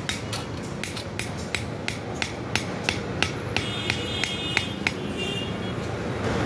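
Blacksmith's hand hammer striking iron on an anvil in a steady rhythm of sharp metallic clinks, about three blows a second; the blows stop about five seconds in.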